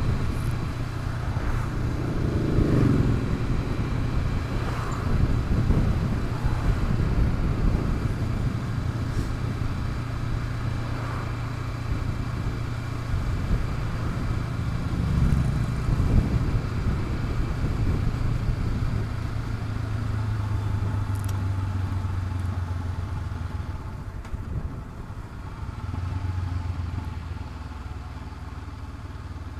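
Honda CB500X parallel-twin motorcycle engine running while riding, under a rush of wind and road noise. The engine note shifts pitch a few times and gets quieter near the end.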